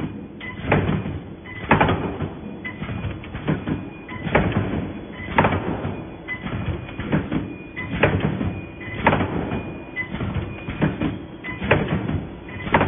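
Gantry-type wire mesh welding machine running through its cycle: a sharp clunk about once a second as the welding heads come down on the wire grid, over continuous mechanical noise from the machine.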